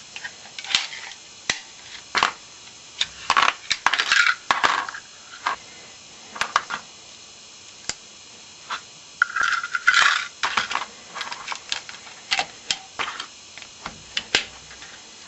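Glock magazine parts being handled and fitted together by hand: the polymer body, coil spring, follower and floor plate give an irregular run of small clicks, snaps and scrapes, with a longer scrape about nine seconds in.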